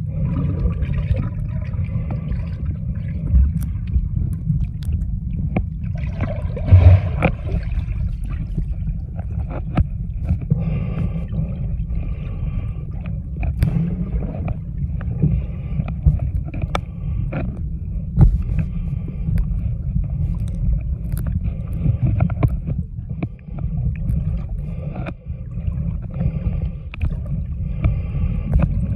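Muffled underwater sound picked up by a submerged camera: a steady low rumble of moving water, with scattered clicks and knocks. The loudest knock comes about seven seconds in.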